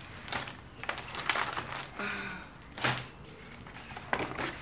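A stack of scrapbook paper sheets being handled on a wooden tabletop: rustling and crinkling in short bursts, with a thump near the end.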